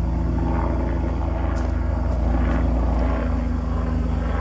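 An aircraft flying overhead: a steady low engine drone with a faint regular beat through it.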